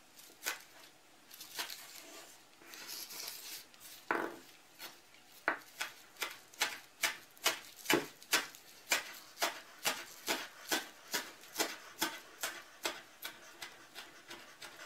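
Kitchen knife chopping fresh chives on a wooden cutting board: a few scattered taps and rustling at first, then steady chopping strikes about three a second from roughly five seconds in.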